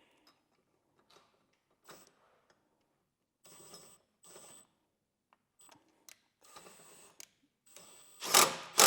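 Hand tools and metal hardware being handled during a bolt-on install: scattered clicks and short scrapes, then two loud clanks near the end.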